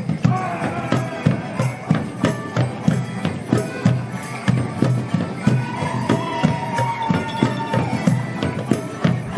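Border morris band playing a folk dance tune on melodeons, with a steady drum beat and sharp knocks on the beat.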